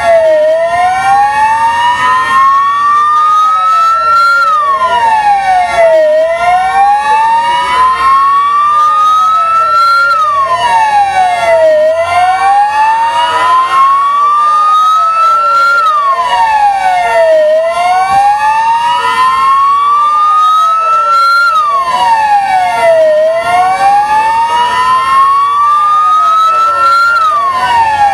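Siren wailing loudly in a slow, repeating rise and fall, about once every six seconds. The pitch climbs over roughly four seconds and drops back in under two.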